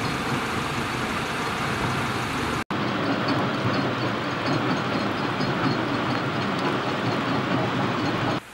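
Stone quarry's crushing and conveyor machinery running with a steady, dense mechanical din. The sound cuts out for an instant about three seconds in, then carries on unchanged.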